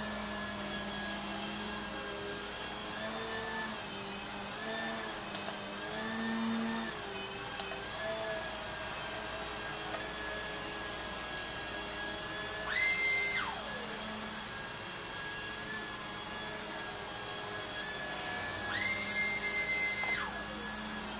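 Small RC helicopter's electric motors and rotors whining steadily in hover, the pitch wavering as the throttle is worked. Twice a higher whine rises briefly and then glides down.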